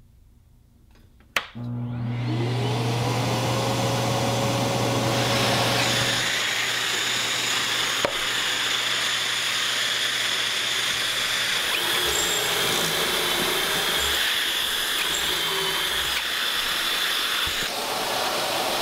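Festool dust extractor switched on with a click and spinning up in a rising whine, then running steadily with a high whine as it draws air through its hose. Partway through, a drill boring pocket holes in the Kreg jig runs over it.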